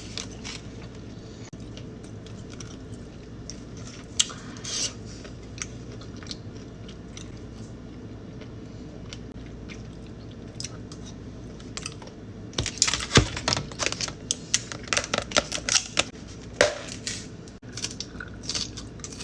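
Close-miked eating: crisp crunching and chewing. There are a few scattered bites early on, then a dense run of crunches from about two-thirds of the way in.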